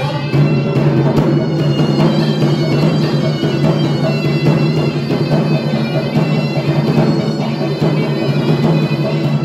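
Traditional South Sulawesi dance music for the Paduppa: a reedy wind instrument playing a melody over a steady low drone.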